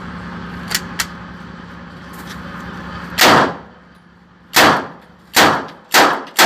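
Two light metallic clicks about a second in, then a submachine gun with a drum magazine fired in single shots: five loud shots spaced about half a second to a second and a half apart, each ringing briefly.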